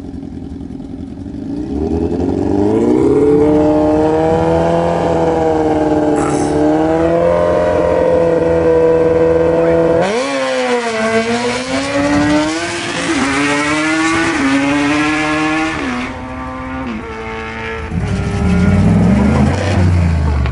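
Small-block Chevy V8 in a 1987 Chevy 4x4 pickup, held at high revs for several seconds. About halfway through it launches, and its pitch climbs and drops in steps as the manual gearbox is shifted, fading as it pulls away. Near the end a deeper engine rumble comes up close by.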